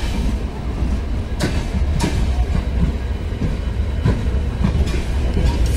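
Loaded freight train's open goods wagons rolling past close by: a steady low rumble of steel wheels on rail, with sharp clacks at irregular gaps as the wheels cross rail joints.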